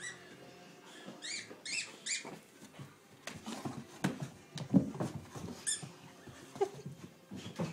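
Squeaky dog ball squeaking in short, pitched squeaks as a Siberian Husky chews it, a few close together in the first two seconds and one more near six seconds in. Between them come knocks and scuffling, the loudest thump about five seconds in.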